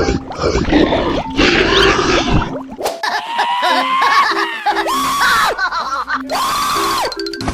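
Meme sound effects of harsh screaming and yelling, then several wailing cries that rise, hold and drop in pitch, over a light music track with short repeated notes.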